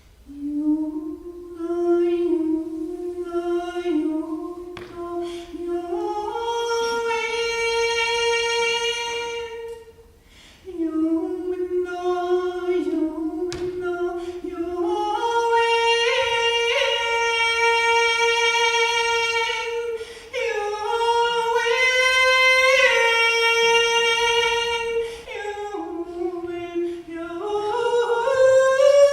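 A woman singing wordlessly, unaccompanied, in long held notes that step up and down in pitch. There are three phrases, with short breaks about ten and twenty seconds in.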